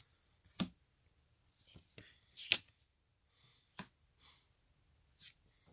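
Foil Magic: The Gathering cards being handled: a few short clicks and slides, about one a second, as cards are pulled from the stack and tucked behind it.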